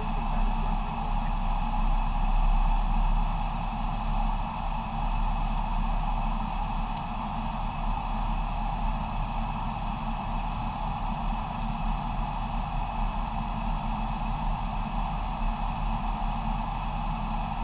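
Steady cockpit noise of an airliner in flight: a continuous rush of air over the nose and windscreen with a low hum beneath it.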